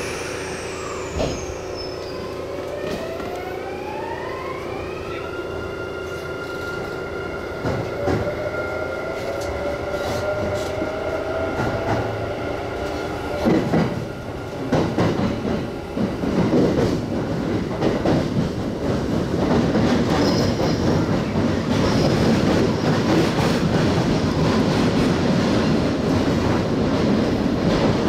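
Kintetsu electric train accelerating away: the traction motors whine in rising tones that climb for a few seconds and then hold, and a second tone climbs a few seconds later. From about halfway in, the wheel and rail noise builds as the train gathers speed, with a few knocks from the wheels over the track.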